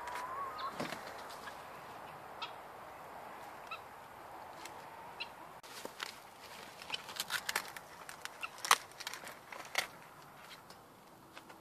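A chicken's short wavering call near the start, then a run of sharp snaps and crackles from about halfway through as red cabbage leaves and stalk are cut and torn from the plant.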